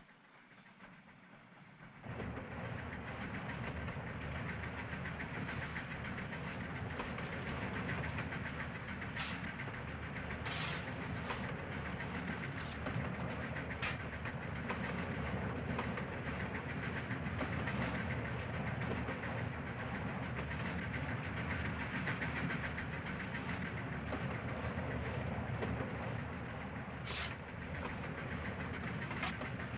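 Steam locomotive running at speed, heard from inside its cab: a dense, steady rattle and clatter with a few sharp metallic clanks now and then. It is faint at first and comes in loud suddenly about two seconds in.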